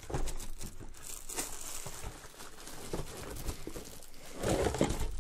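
Clear plastic packaging bag crinkling and rustling as a boxed bug zapper is pulled out of its cardboard box, with cardboard rubbing and small handling knocks; louder near the end.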